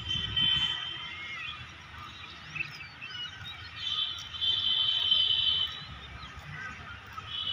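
A high, steady whine comes and goes: it sounds at the start, again for about two seconds in the middle, and returns at the end. Faint short bird chirps are scattered through it.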